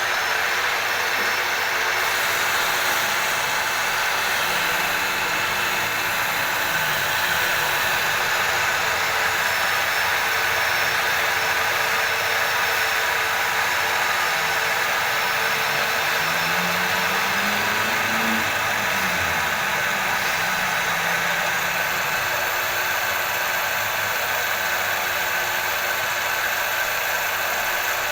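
BV20-1L gear-head mini lathe running steadily, its motor and headstock gearbox giving an even mechanical whine and hiss.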